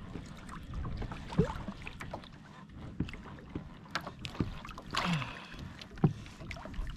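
Wind and water noise around a kayak, with irregular clicks and knocks from a fishing reel being cranked to bring up a hooked fish from deep water.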